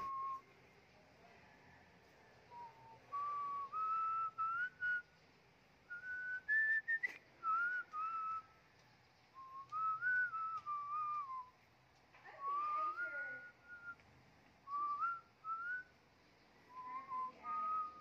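A person whistling a tune: a single clear tone stepping and gliding between notes in short phrases, with brief pauses between them.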